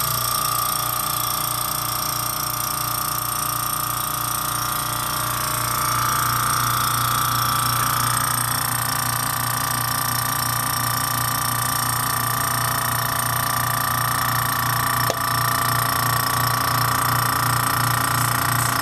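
Electric vacuum pump running steadily, a hum with a whine over it, drawing vacuum through a filter flask for Büchner-funnel filtration. It gets a little louder about six seconds in, with a single click about fifteen seconds in.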